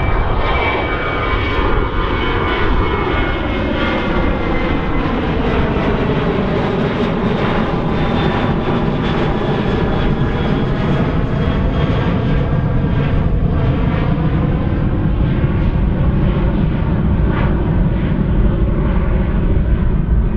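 Boeing 737-800's two CFM56-7B26 turbofan engines at takeoff thrust as the jet climbs out and passes overhead: a steady loud roar with a slowly sweeping, phasing quality. A thin high fan whine sounds in the first few seconds and drops away.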